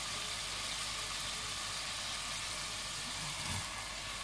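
Onion and spice masala sizzling steadily as it fries in oil in an aluminium pot.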